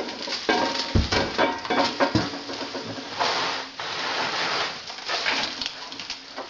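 Irregular knocks and clatter with scraping, as heavy parts are handled during stove installation: a heavy thud about a second in, another around two seconds, and scraping bursts later, with a brief squeak early on.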